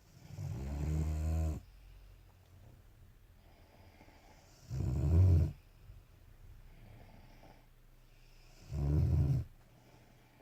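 A sleeping Staffordshire bull terrier snoring: three loud, rasping snores about four seconds apart, with soft breathing in between.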